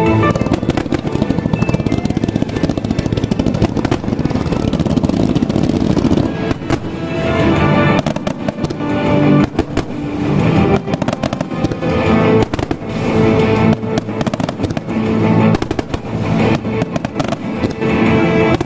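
Starmine fireworks barrage: many shells bursting in rapid succession with crackling, densest in the first few seconds, over music with a steady melody.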